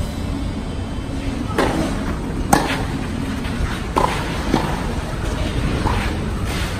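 Tennis balls being struck by rackets and bouncing during a doubles rally: a series of sharp pops, about six in all, the loudest about two and a half seconds in. A steady low rumble runs underneath.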